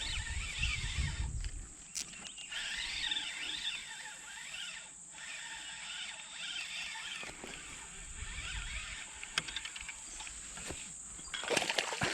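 Outdoor river ambience: a steady high-pitched drone with warbling animal chirps over it, and low rumbles of water moving around a wading angler at the start and again about eight seconds in. A few sharp clicks come near the end.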